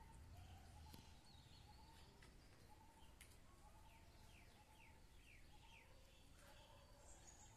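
Faint ambience with distant birds calling: scattered short whistles, and in the middle a run of about five quick falling chirps.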